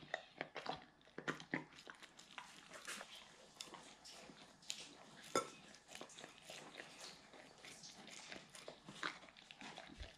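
Doberman eating soft cake out of a glass cake stand: irregular wet chewing, licking and lip-smacking, with small clicks of teeth and tongue on the glass and one sharper click about five seconds in.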